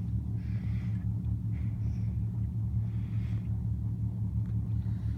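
Pontoon boat's motor idling, a steady low rumble with an even hum.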